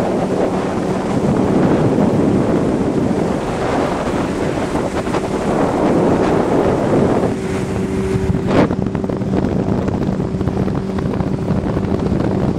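50 hp Johnson outboard motor running steadily at speed on a planing speedboat, its drone under heavy wind buffeting on the microphone and rushing spray. A single sharp knock about eight and a half seconds in.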